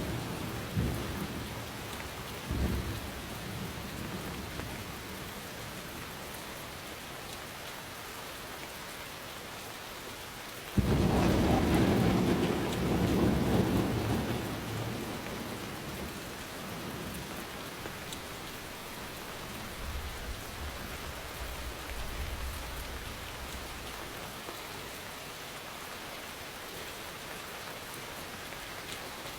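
Steady rain falling, with thunder: a rumble dying away at the start, then a sudden loud thunderclap about eleven seconds in that rolls on for several seconds before fading, and a fainter low rumble around twenty seconds in.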